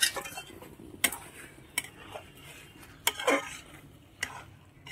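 A metal spatula scraping and knocking against a metal kadai as soya chunks are stirred into a thick masala. There are about half a dozen sharp, uneven clinks.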